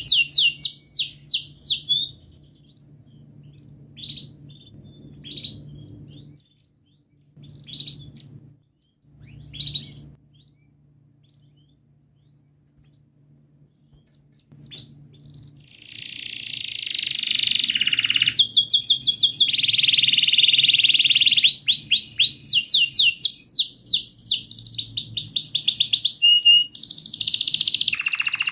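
Domestic canary singing: a short burst of song, a few scattered chirps, then a quiet stretch of several seconds. About halfway through, the song resumes as a long run of fast repeated chirps and rolling trills.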